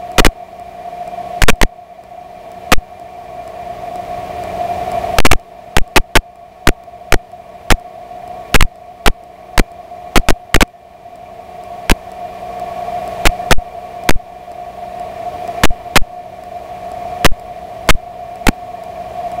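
In-flight noise of a de Havilland DH82A Tiger Moth's four-cylinder Gipsy Major engine and slipstream. It is heard as a steady hiss with a constant hum that slowly swells and fades, broken many times at uneven spacing by loud sharp clicks.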